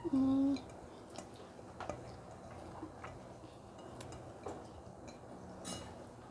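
Close-miked eating sounds: a short hummed 'mmm' right at the start, then scattered soft clicks and taps as fingers pick rice grains off a ceramic plate and she chews.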